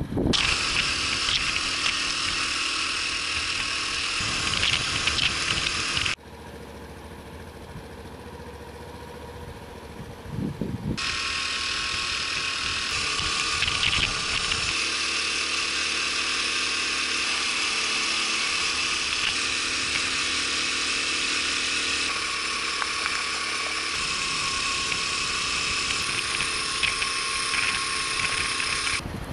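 Honda Super Cub 50's small four-stroke single-cylinder engine running while riding, under a steady high hiss. The sound drops away sharply for about five seconds partway through, then comes back at the same level.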